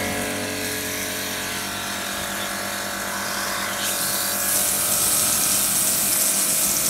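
Pressure washer running steadily, its motor and pump giving a steady hum, with the hiss of the water spray wetting down a wooden shed. The spray hiss grows louder about four seconds in.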